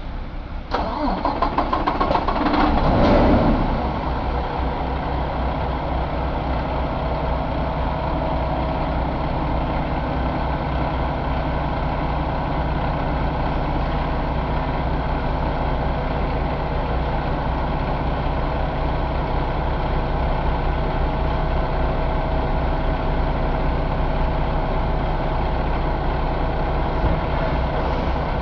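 2018 Paccar MX13 inline-six diesel engine starting. It catches within the first second, runs up louder for a couple of seconds, and settles into a steady idle from about four seconds in.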